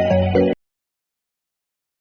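Background music with pitched melodic notes over a bass line that cuts off abruptly about half a second in, leaving dead digital silence.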